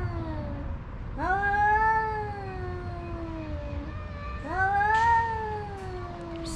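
Male cats yowling at each other in a territorial standoff. One long drawn-out yowl tails off at the start, then two more follow, each lasting a couple of seconds and rising, then slowly sinking in pitch.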